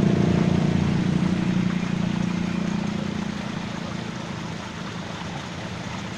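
A motor's steady hum fades away over the first four seconds or so, leaving the steady rush of water pouring through a small stream.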